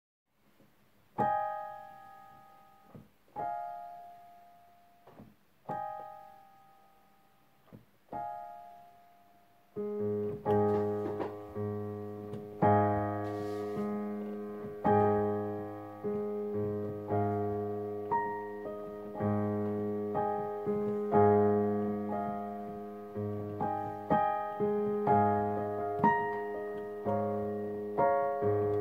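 Digital piano playing a slow, gentle piece: four single chords, each left to ring and die away, about two seconds apart, then about ten seconds in low bass notes join and the playing becomes fuller and continuous.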